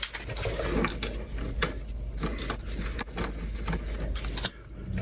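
Metal hand tool clicking and clinking with a Torx bit on the bolt of a motorcycle's stock gear shift lever as it is worked loose: a run of short, uneven clicks over a low hum.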